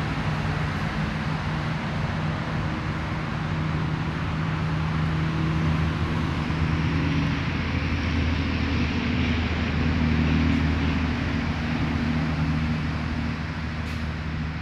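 A steady low engine hum under a broad hiss, like a motor vehicle running nearby. It swells a little towards the middle and eases near the end.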